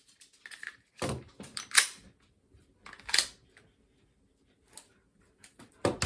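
Sharp metallic clacks and handling noises from a Ruger Security 9 pistol being worked by hand, coming singly every second or so, with the loudest at about one and two seconds in and again just before the end.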